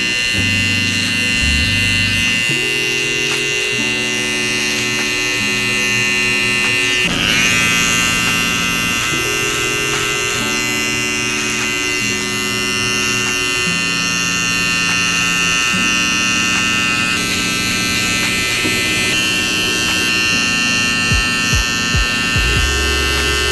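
Cordless T-blade hair trimmer running steadily with a high buzzing whine as it lines up the neckline under a long beard. Background music plays over it.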